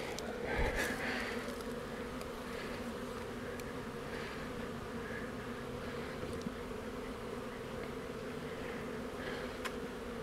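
Honeybees from a freshly installed package colony buzzing steadily around the hive entrance. A couple of faint clicks, about a third of the way in and near the end, as the plastic entrance reducer sliders are adjusted.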